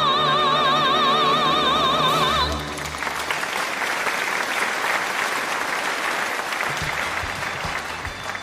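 A singer holds a final high note with wide vibrato over sustained accompaniment. The note stops about two and a half seconds in and gives way to audience applause, which thins out near the end.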